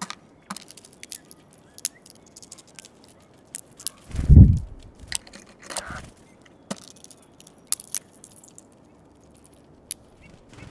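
Eurasian bullfinches pecking and cracking sunflower seeds at a feeder: a scatter of sharp clicks and crunches, with one dull low thump about four seconds in.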